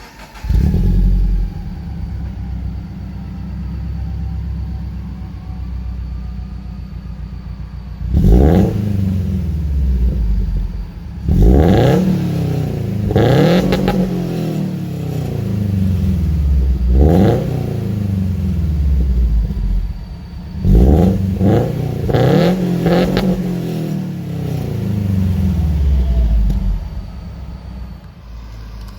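Scion FR-S's 2.0-litre flat-four boxer engine, breathing through Tomei unequal-length headers, running at a steady rumble, then revved several times. Each rev climbs quickly and sinks back slowly, with a few close together about three-quarters of the way through.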